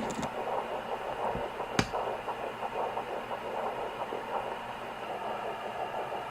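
A Sonoline B pocket fetal Doppler's speaker plays an early-pregnancy fetal heartbeat as a fast, pulsing whoosh mixed with another swishing sound. A single sharp click sounds about two seconds in.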